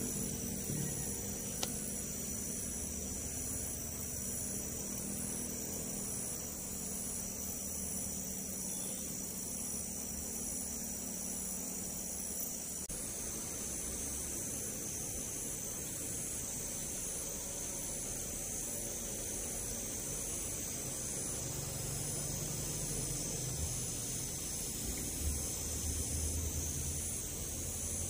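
Steady high-pitched chorus of insects in the creekside vegetation, one voice pulsing in an even rhythm about one and a half times a second, over a low steady hum.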